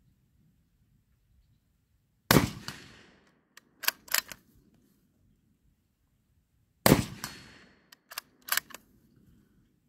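Two shots from a Black Creek Labs Bison bolt-action rifle in .223 Remington with a 12-inch barrel, about four and a half seconds apart, each ringing out and fading over about half a second. About a second after each shot comes a quick run of three or four sharp metallic clacks, the bolt being worked to chamber the next round.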